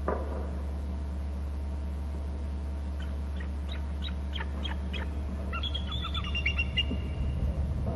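Bald eagle calling: a run of thin, high piping notes about three seconds in, then a quicker chittering cluster of notes. A steady low hum runs underneath, and a short knock sounds right at the start.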